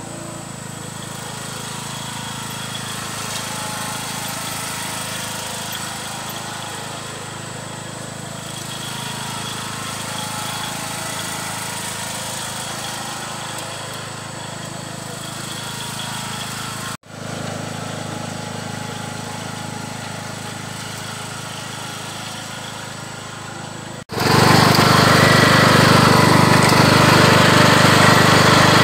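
Riding garden tractor's engine running steadily as it pulls a disc harrow over a food plot, heard from a distance. Near the end it becomes much louder, heard up close from the tractor seat.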